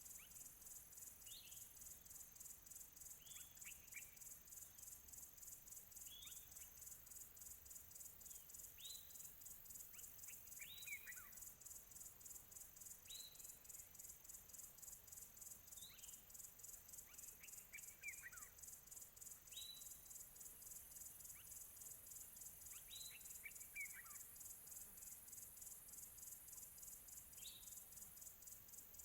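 Faint birdsong: short chirps that fall in pitch, one every couple of seconds, over a steady, very high, rapidly pulsing insect trill.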